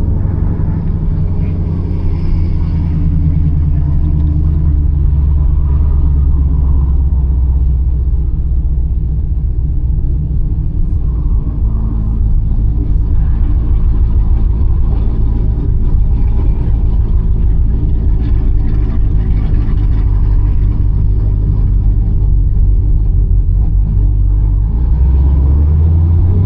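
Chevrolet Camaro ZL1 being driven: its supercharged V8 running steadily under the road noise, mostly deep low-pitched sound with little change in pitch.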